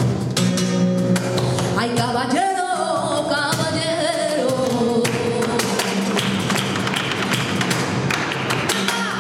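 Live flamenco: acoustic guitar with steady hand-clapping (palmas) and the sharp taps of a dancer's footwork on the stage. A singer's voice comes in with a long wavering line about two seconds in.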